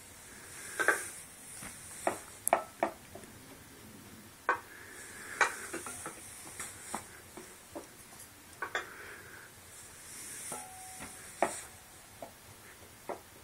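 Irregular sharp clicks, taps and light plastic rattling from a Binger Clinger wobble toy as it is knocked about and rocks on its weighted base. There is a brief squeak a little after ten seconds in.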